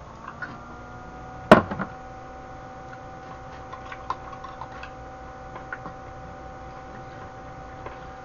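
Metal utensils knocking and clinking against a stainless steel pot: one sharp knock about a second and a half in, then scattered light clinks, over a steady background hum.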